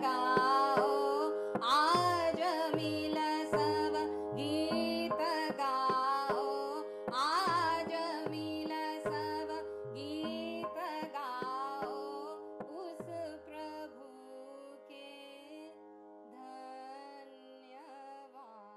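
Indian classical-style background music: a steady drone under a melody of bending, sliding notes, with a low drum stroke falling in pitch a little more than once a second. The drum stops about 14 seconds in and the music fades out, leaving the drone and a few faint notes.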